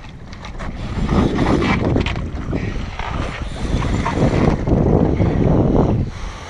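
Wind buffeting the microphone, a rough rushing noise that swells and eases in gusts.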